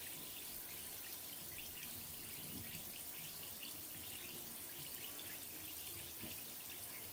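A sunken, non-floating bath bomb fizzing in hot bath water: a faint, steady crackling fizz of tiny popping bubbles, like a cauldron brewing.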